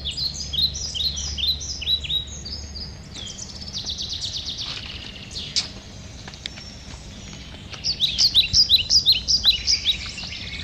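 Birds chirping outdoors: quick runs of short, high, falling notes repeated several times a second, with a louder run of chirps about eight seconds in.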